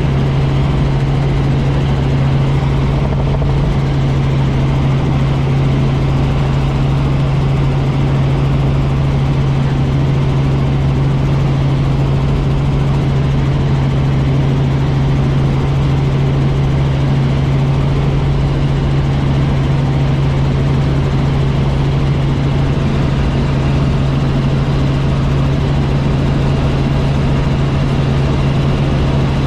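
Helicopter in steady cruise flight, heard from inside the cabin: a constant drone of rotor and engine with a strong, unchanging low hum.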